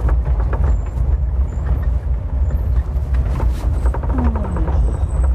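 Maruti Gypsy 4x4 driving over a rough jungle track: a steady low rumble with frequent rattles and knocks.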